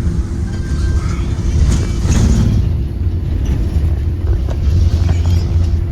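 Inside a 2023 Blue Bird Vision school bus under way: its Ford 7.3-litre gasoline V8 and road noise make a steady low rumble with a constant hum, broken by scattered short clicks.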